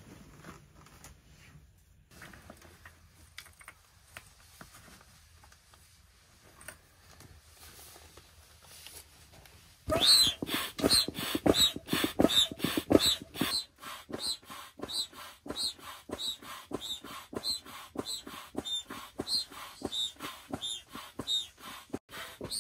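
Low rustling of fabric and hose, then about ten seconds in a foot-operated bellows air pump starts being worked, pushing air through its hose into an inflatable couch in short wheezing puffs, about two to three a second.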